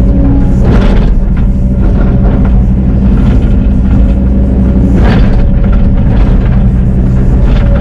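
Excavator's diesel engine running steadily and loud and close, with a steady higher tone over it. There are two brief noisy bursts, about a second in and about five seconds in.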